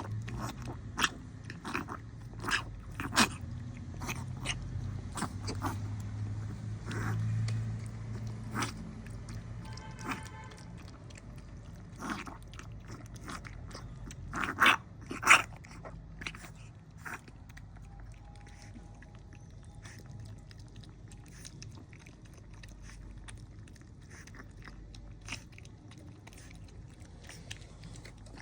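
Puppy making irregular short, sharp sounds, the loudest a close pair about fifteen seconds in, over a low rumble in the first several seconds; the owner wonders whether it is kennel cough.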